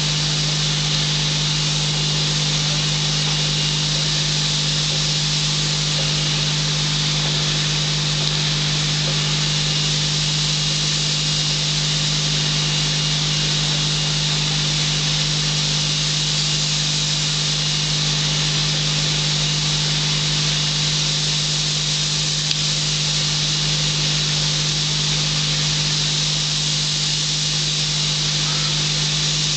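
Paint spray gun hissing steadily as it coats a concrete-block wall, over a constant low hum.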